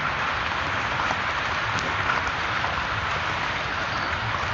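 Steady outdoor background hiss with a few faint scattered ticks and crackles.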